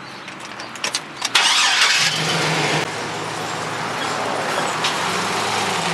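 A vehicle engine starting: a few clicks, a brief loud burst of cranking, then the engine catches about two seconds in and runs steadily at idle.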